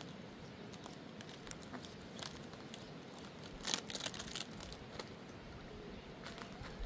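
Light rustling and crackling of dry, thin round flatbread as the sheets are handled and folded over on a metal tray, loudest a little past halfway.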